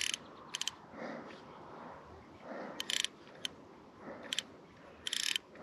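Fly reel's drag clicking in several short bursts as a hooked trout pulls line off in brief tugs against the bent rod. The longest burst comes near the end.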